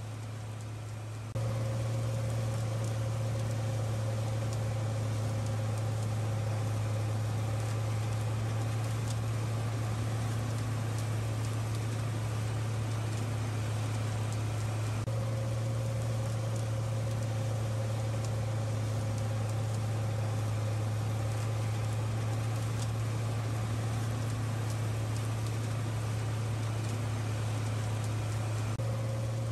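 Steady low engine drone with a faint higher tone above it. It steps up in level about a second and a half in and shifts slightly halfway through and again near the end, as at cuts between takes.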